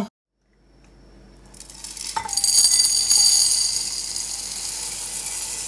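Dried black chickpeas (kala chana) poured in a stream into a bowl: a steady rattling patter of many small hard grains. It builds over the first two seconds, is loudest just after a sharp click, then eases a little.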